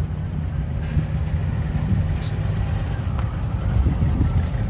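A line of cars approaching and rolling in, their engines making a steady low rumble.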